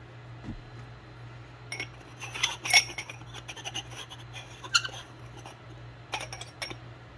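Metal clinks and taps of machined aluminium catch can parts and an Allen key being handled and fitted together: a scattering of sharp clicks starting about two seconds in, over a steady low hum.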